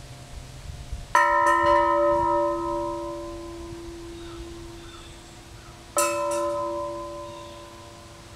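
Large rocking cylinder bell struck twice by its clapper as it tips, about five seconds apart. Each strike rings on in a low steady tone with higher overtones that slowly fade; the first strike has a quick, lighter second hit just after it.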